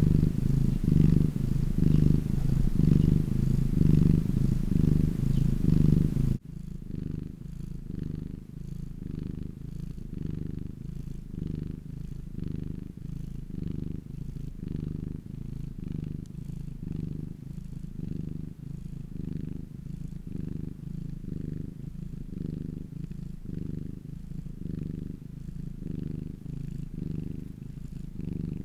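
Domestic cat purring, a low rhythmic purr of even pulses. About six seconds in it drops suddenly to a quieter level and goes on purring.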